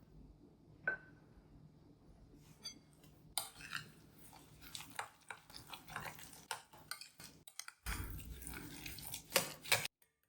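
Kitchen handling sounds: a single ringing clink about a second in, then a run of quick taps, scrapes and clicks of utensils and dishes, which cuts off abruptly near the end.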